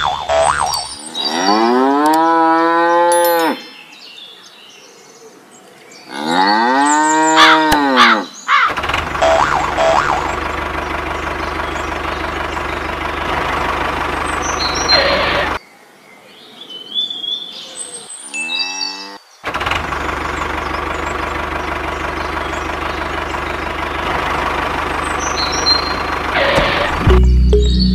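Cow mooing twice, each a long call that rises and then falls in pitch. After that comes a steady engine running in two long stretches, with a short break between them, and a few short high chirps over it.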